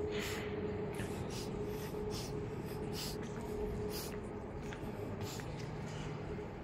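Room ambience inside a church: a steady hum under scattered short, hissy rustles.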